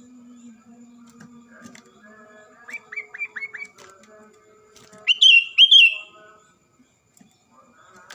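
Bulbuls singing, yellow-vented bulbul (trucuk) and sooty-headed bulbul (kutilang): a quick run of five rising whistled notes about three seconds in, then two loud, higher notes a couple of seconds later, over faint, continuous lower warbling.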